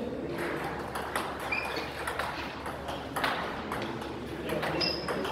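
Table-tennis rally: the celluloid-type ball clicks off the rackets and bounces on the Stiga table, a string of sharp, irregularly spaced clicks, some with a short high ring.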